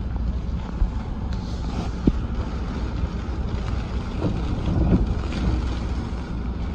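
Vehicle driving: a steady low engine and road rumble, with a single sharp knock about two seconds in.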